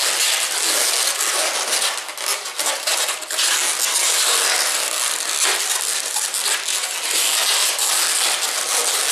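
Inflated latex 260 modelling balloons rubbing against each other under the hands as they are twisted and pressed into a bundle, a continuous dense rubbing noise.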